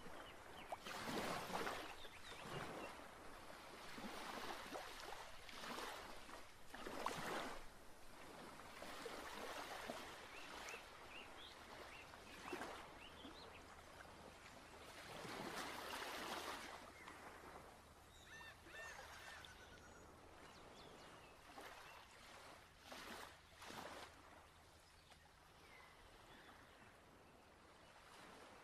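Faint water washing in irregular swells, every second or two, with a few short bird chirps a little past the middle.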